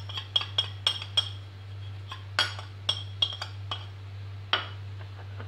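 Metal spoon stirring dry spices in a glass bowl: a run of light, irregular clinks against the glass, each with a short ring. A steady low hum runs underneath.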